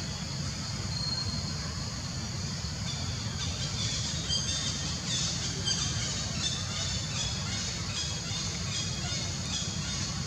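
Forest ambience: a steady high-pitched insect drone over a low rumble. From about three and a half seconds in, a run of short, repeated high-pitched calls joins it.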